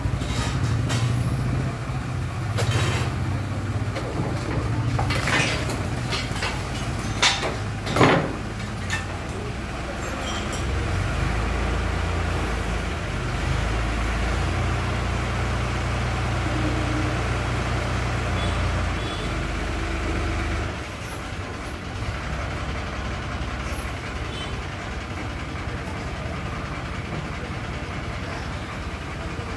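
Crane engine running steadily under load as it pulls an electricity pole out of the ground, with several sharp knocks and cracks in the first eight seconds, the loudest about eight seconds in. The engine eases off about twenty seconds in.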